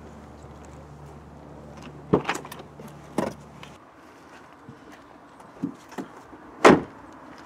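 Car doors being shut: two solid thuds about two and three seconds in, a couple of lighter knocks, then the loudest slam near the end. A low steady car engine hum runs under the first two thuds and stops about four seconds in.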